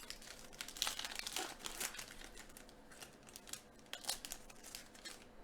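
Foil wrapper of a Donruss Optic football card pack crinkling and tearing as it is opened, a faint run of irregular crackles.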